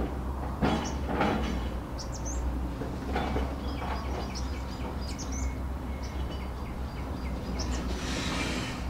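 Hydraulic excavator's diesel engine running steadily while its bucket tears into brush, with crackling and rustling of branches about a second in and again a few seconds later. Small birds chirp intermittently over it.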